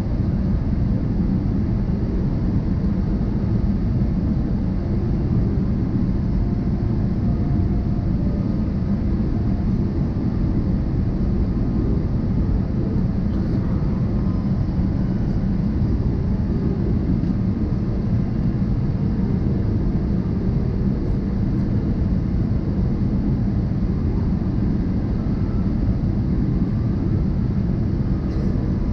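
Steady jet airliner cabin noise heard from a window seat over the wing: an even, low rumble of engines and airflow during the descent.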